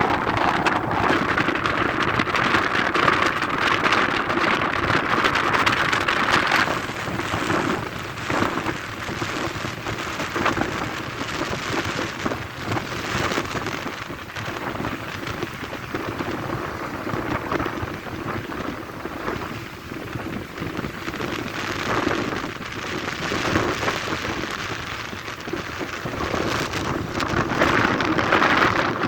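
Rain falling in a storm, with a steady hiss scattered with drop hits. It is heavier for the first seven seconds or so, then eases off.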